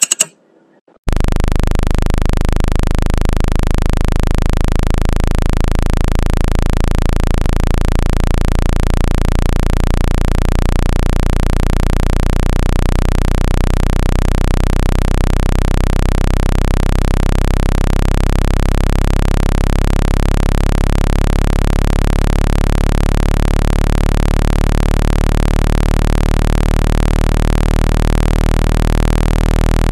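A short click, then about a second in a synthesized low-frequency speaker-cleaning tone starts: a loud, steady drone of several low hums stacked together, with a rapid flutter in places. The tone is meant to vibrate a phone speaker to shake out trapped water and dust.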